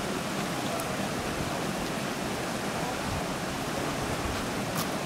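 Shallow creek water running steadily.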